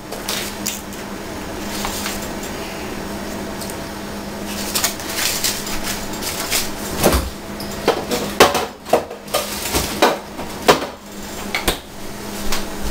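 Clinks and knocks of kitchen utensils against a steel saucepan and dishes on a counter, irregular and clustered in the middle, over a faint steady hum.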